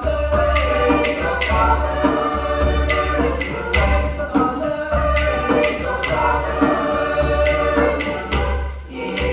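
Choir singing in parts over a steady beat of light percussion ticks.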